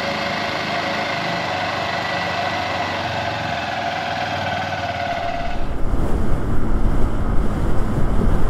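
Honda XR150L single-cylinder motorcycle engine running steadily while riding. About five seconds in the sound changes abruptly to a low wind rumble on the microphone as the bike rides on.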